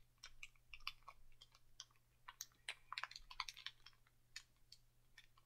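Faint, irregular clicks and crackles of Skittles candies being handled and chewed, several a second with short gaps.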